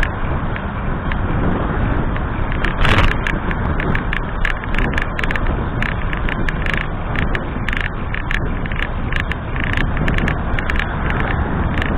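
Wind rushing over the microphone and road noise from a road bike riding along a street, with frequent small clicks and rattles from about two and a half seconds on and a louder rush of air about three seconds in.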